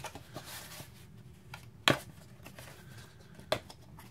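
Red hard-plastic tool case being slid out from a shelf and handled, with light scraping and rustling. Two sharp plastic clicks come about a second and a half apart, the first, just before two seconds in, the loudest.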